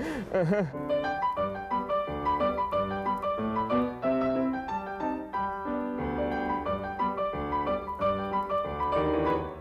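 Piano music, a steady run of separate notes.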